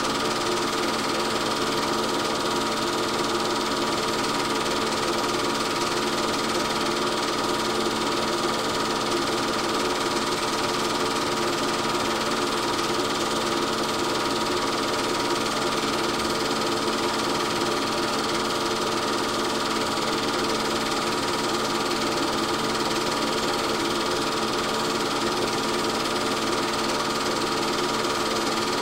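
Steady mechanical whirr and clatter of a film projector running, with constant tones over a hiss that never change; it is not the racing cars, since the 8 mm film has no sound of its own.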